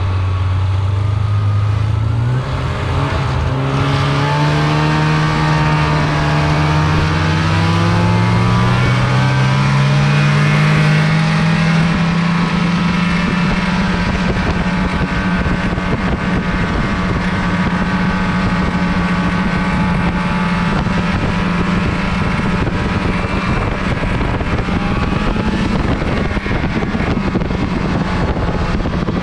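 Snowmobile engine running under way, its pitch climbing as the machine speeds up over the first ten seconds or so, then holding steady at cruising speed.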